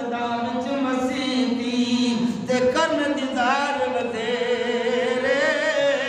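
A man singing a devotional verse in drawn-out, melismatic phrases. The long held notes waver with vibrato, most plainly near the end.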